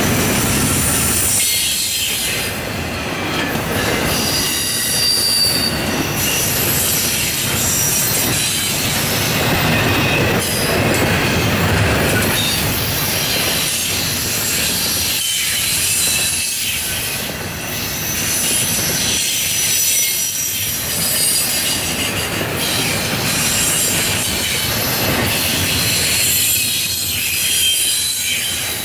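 Norfolk Southern double-stack intermodal freight train's loaded container well cars rolling past, steel wheels squealing against the rails in thin high-pitched squeals over a steady rolling rumble.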